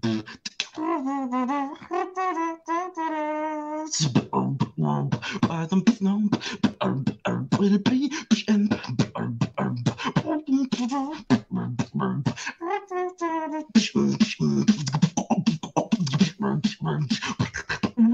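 A man beatboxing a routine: a held, wavering vocal tone for the first few seconds, then rapid vocal drum beats over a deep bass line. A short pitched passage comes about two-thirds of the way in, then fast beats again.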